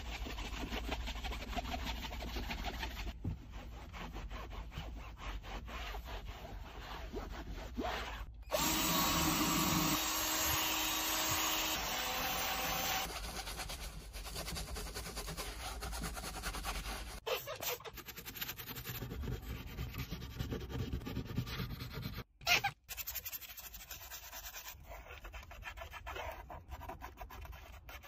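Car interior being detailed: brushes and cloths scrubbing plastic trim and upholstery across a series of short cuts, with a louder steady hiss from about nine to seventeen seconds in.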